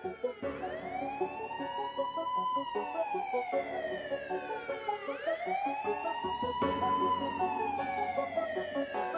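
Wailing siren, rising quickly and falling slowly, two cycles about five seconds apart, laid over a beat intro with keyboard notes.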